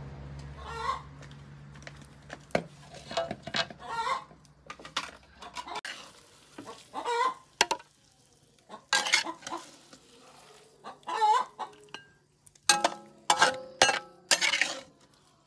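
Hens clucking again and again nearby, with a metal spatula scraping and clinking against a steel wok, sharpest in the second half.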